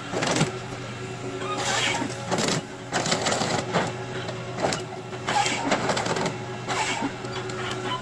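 Nisula 555H harvester head on a Volvo ECR145EL tracked carrier working: a steady engine and hydraulic drone under irregular clatter and cracking as it grips, feeds and cuts logs.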